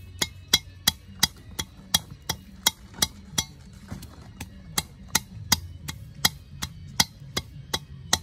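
Wooden pestle pounding in a metal mortar: sharp knocks at an even pace of about three a second.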